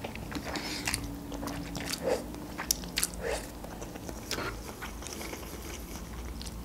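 Close-miked mouth sounds of eating instant noodles: wet chewing and smacking with irregular short clicks, a few sharper ones in the middle. The metal fork stirs the noodles in the cup near the end.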